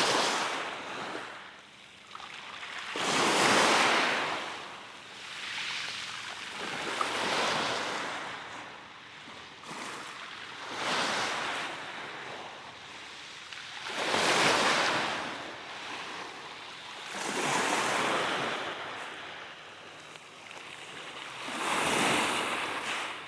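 Sea waves breaking on the shore and washing back, rising and falling in a surge every three to four seconds.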